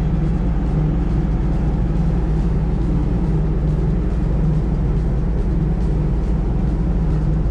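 A car ferry's engines running, a steady low rumble heard from the open deck.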